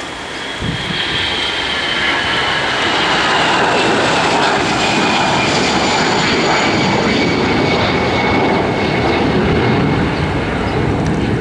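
Airbus A320's twin jet engines at taxi power: a steady rush with a high whine that slowly falls in pitch. It grows louder about a second in and then holds steady.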